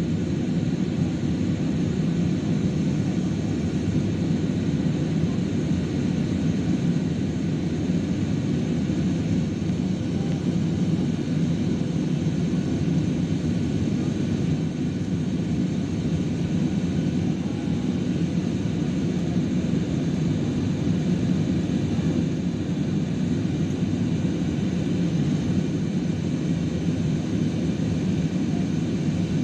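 Steady cabin drone of an airliner in flight: engine noise and rushing air heard from inside the cabin at a window seat, a deep, even rumble that does not change.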